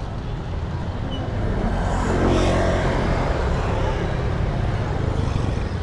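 A motorcycle engine idling under street traffic noise, with a vehicle passing close by about two seconds in, swelling and then fading.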